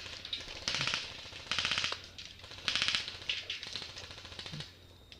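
Airsoft electric guns firing short full-auto bursts: three rapid rattling bursts about a second apart, followed by a few shorter ones.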